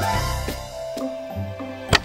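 Background cartoon music with a bass line and drum beat, with one sharp hit just before the end.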